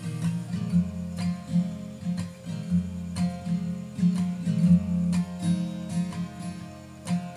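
Acoustic guitar with a capo, strummed and picked in a steady rhythm: an instrumental break with no singing.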